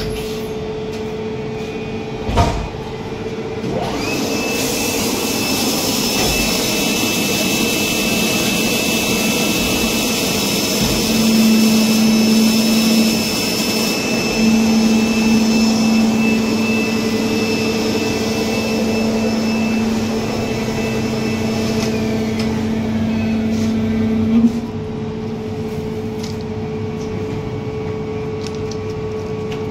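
Plastic-moulding workshop machinery running with a steady hum, and a high motor whine that starts about four seconds in and winds down around 22 seconds: a vacuum hopper loader drawing black plastic pellets up a suction pipe from a sack. A lower hum runs through the middle and ends with a sharp knock about 24 seconds in; another knock comes about two seconds in.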